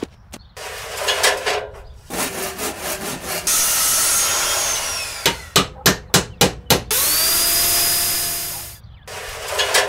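Construction work sounds: clattering and knocking, then a power tool running with a falling whine. A quick run of about seven hammer blows follows, then a power tool runs again with a whine that rises and holds.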